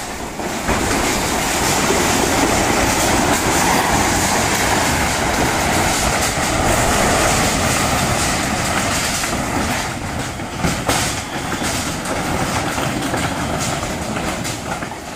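Fast-flowing floodwater rushing, a loud steady noise with a deep rumble and scattered crackles.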